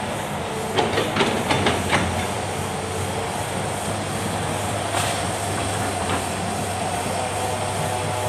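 Hitachi Zaxis hydraulic excavator's engine running steadily, with a quick run of sharp knocks and clanks about a second in and another knock about five seconds in.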